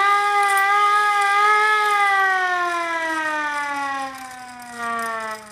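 Hand-cranked air raid siren wailing, its pitch rising slightly and then falling away as the cranking slows. It drops off about four seconds in, with a brief swell near the end.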